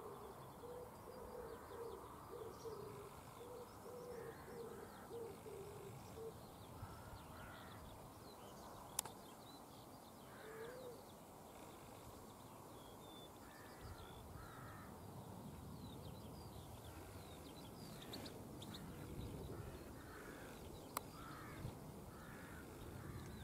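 Birds calling: a repeated low hooting call over the first six seconds, then scattered short higher calls. A faint low rumble grows in the second half, and there are two sharp clicks.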